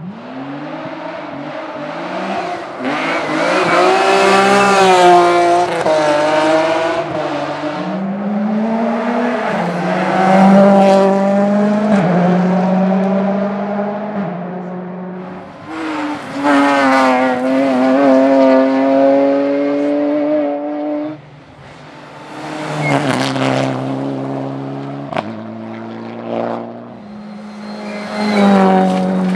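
Rally car engine at full throttle, revs climbing and falling again and again through gear changes and lifts. It comes in several loud surges, with a sudden drop in revs about two-thirds of the way through.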